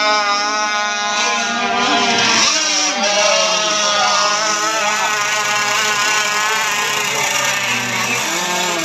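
Radio-controlled racing boats' motors whining at high speed, several at once, the pitch wavering up and down as the boats race and turn.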